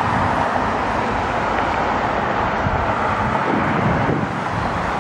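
Steady hiss of road traffic, vehicle tyres and engines running by without a break.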